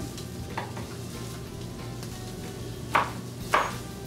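Chef's knife slicing green chilies on a plastic cutting board: a few faint cuts, then two sharp knocks of the blade on the board about half a second apart near the end. Soft background music runs underneath.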